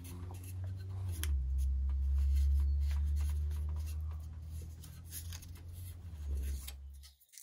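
Paper and masking tape rustling and crinkling in small bursts as they are wrapped and pressed around a wooden axe handle, forming a mold for pouring pewter. A steady low hum runs underneath and stops abruptly near the end.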